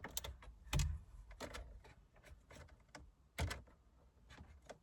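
Irregular clicks and light knocks of a screwdriver working a screw out of plastic dashboard trim. The loudest knock comes just under a second in.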